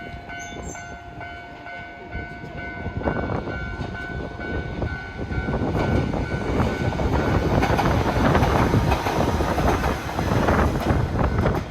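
Railway level-crossing bell ringing in steady pulses, then a train runs over the crossing, its wheels clattering on the rails. The train noise builds from about three seconds in and is loudest near the end, drowning out the bell.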